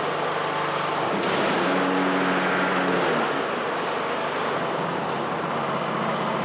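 Troy-Bilt Bronco riding mower's engine running steadily while the blade engagement lever is worked, putting the new deck belt and blades under drive. A brief hiss about a second in, and the engine note shifts as the deck engages.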